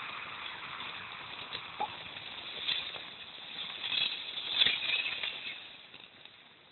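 Sled runners scraping and hissing over packed snow, with a few sharp knocks as the sled bumps along, the loudest about four and a half seconds in. The scraping then dies away.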